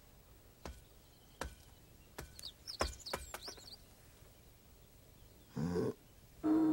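A striped temari hand-ball bouncing on packed earth: a string of sharp knocks, some in quick pairs, over the first half, with small birds chirping. Near the end comes a short rising grunt, then a steady bell-like ringing tone starts and holds.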